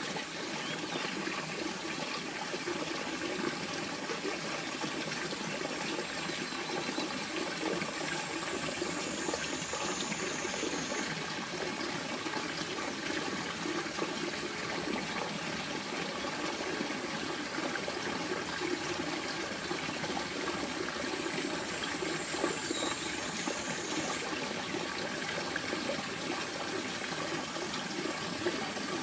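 A steady, even, water-like rushing noise that runs without breaks or distinct events.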